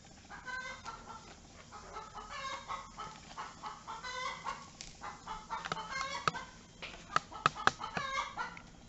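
Chicken clucking in short calls, one or two a second. A few sharp clicks or knocks in the second half are the loudest sounds.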